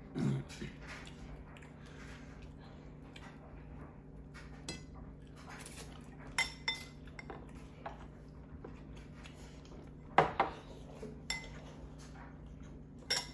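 Spoons and other cutlery clinking against bowls and dishes while eating: scattered light clinks with a few sharper, briefly ringing ones, over a faint steady hum.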